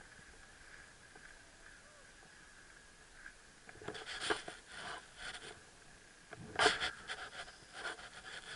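Skis scraping and chattering over packed, tracked snow in uneven bursts, starting a few seconds in, with the loudest scrape near the end. A faint steady high whine sits underneath.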